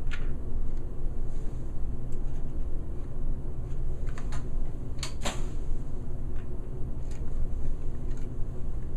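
Multichannel pipette being worked over a rack of plastic cluster tubes: a few sharp plastic clicks and taps, a pair about four seconds in and the loudest pair about five seconds in, over a steady low hum.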